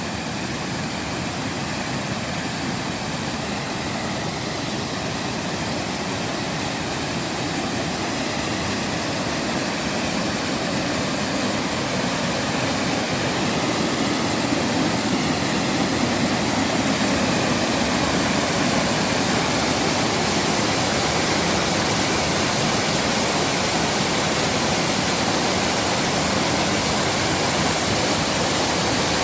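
Waterfall rushing steadily, growing a little louder about a third of the way through and then holding even.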